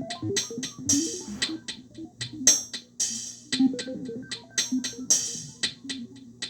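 Electronic music from a Korg Electribe drum machine and synthesizer: a repeating beat of short percussive hits, with longer hissy hits every couple of seconds, over short low synth notes.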